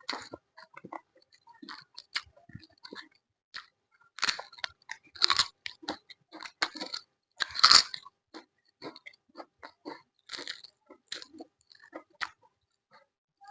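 A person chewing and biting into crisp food close to the microphone, with irregular loud crunches, the biggest about four to five seconds in and again near eight seconds.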